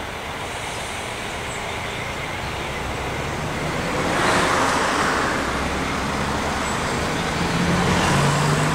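A vehicle passing close by: a steady rushing noise swells about four seconds in, then settles into a low steady hum.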